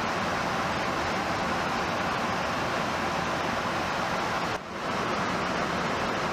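Steady rushing roar of airflow and engine noise aboard an aerial refueling tanker in flight. It drops out briefly about four and a half seconds in.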